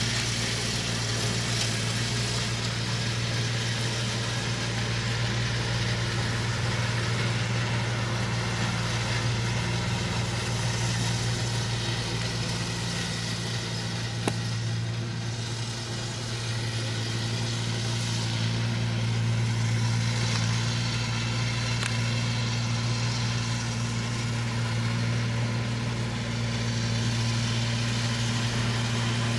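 Large compost-spreading machine running steadily: a constant low engine hum with a noisy hiss above it. A single sharp click about halfway through.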